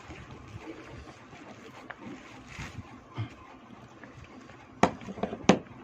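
Eating sounds of someone chewing a mouthful of chicken curry, quiet with small wet clicks, then two sharp smacking clicks near the end.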